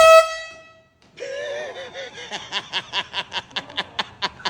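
An air horn blast, the loudest sound, fading out within about a second. After a brief gap, a person laughing in quick, even pulses, about five a second.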